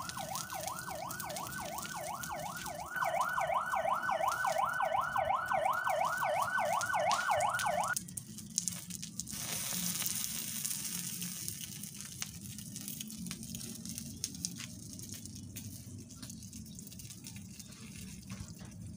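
Toy fire truck's electronic siren sounding in quick repeated rising sweeps, about three a second. It gets louder about three seconds in and cuts off suddenly about eight seconds in, leaving a faint hiss with scattered clicks.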